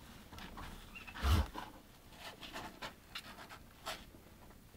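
Soft rustling and scratching of kittens' fur and a hand moving against them in a cardboard box, with one dull thump about a second in.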